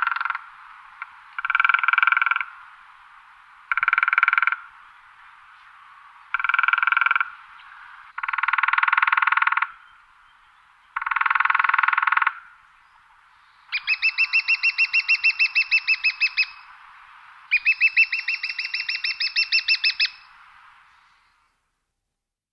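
Woodpecker drumming on wood: a series of rolls about a second long, coming every two seconds or so. Two longer rolls of about three seconds each follow, with the separate strokes plain, roughly ten a second.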